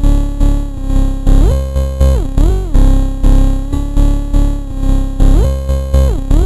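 Slightly slowed electronic music mashup: a synth line gliding up and down in pitch over heavy bass pulses about twice a second.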